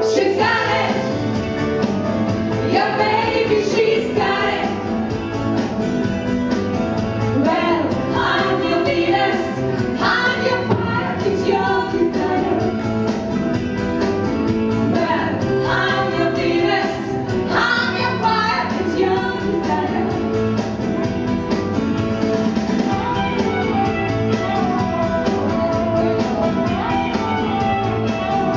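Female vocal trio singing a lively song into microphones over instrumental accompaniment.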